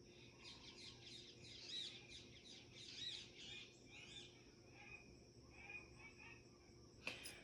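Faint chirping of several small birds, busiest in the first few seconds and thinning out after, over a steady high insect drone. A short click comes about seven seconds in.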